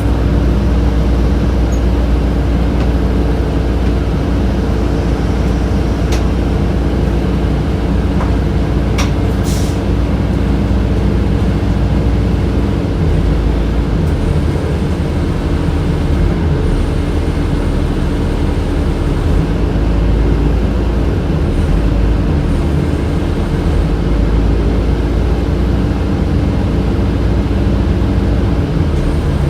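Inside a 2007 Orion VII city bus under way: the HVAC system runs with a steady, even hum over the low rumble of the bus's engine and the road. A few brief clicks or rattles come through about six and nine seconds in.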